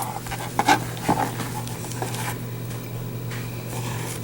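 Knife cutting bread into small cubes on a cutting board: scattered soft knocks and scrapes, a few sharper taps in the first couple of seconds, over a steady low hum.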